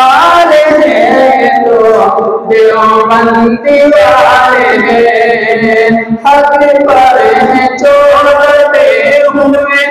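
Young man singing an Urdu naat into a microphone, in long held, melismatic phrases of a second or two with short breaks for breath.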